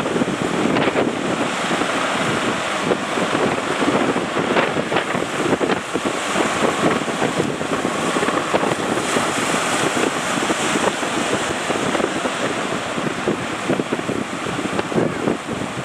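Strong wind buffeting the microphone over the steady rush of breaking surf at a river mouth.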